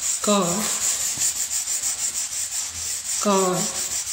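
Dried paint being scrubbed by hand off a hardwood floor: a fast, even back-and-forth scratching, several strokes a second. Twice, about a third of a second in and again near the end, a short squeak falls in pitch.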